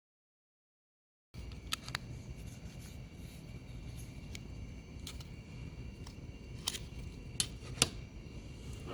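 Packaging of a boxed product being handled: a few sharp clicks and snaps over low room noise, the loudest near the end. The sound starts after about a second of silence.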